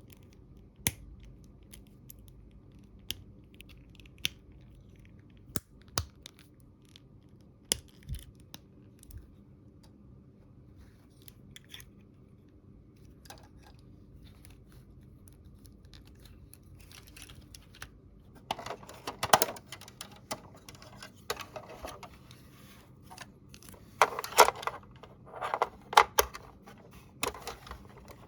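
Small plastic toy pieces being handled: scattered sharp clicks and taps for the first half, then, about two-thirds of the way in, a denser run of rustling and clicking as pieces and packaging are handled.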